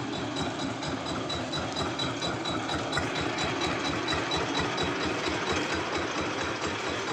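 Small boat engine idling with a steady, rapid, even beat.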